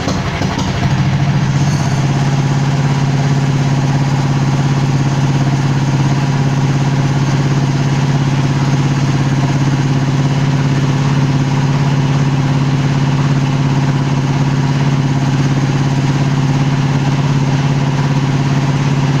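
Go-kart's small petrol engine idling steadily, just after being started on choke. Its note rises a little and settles about two seconds in.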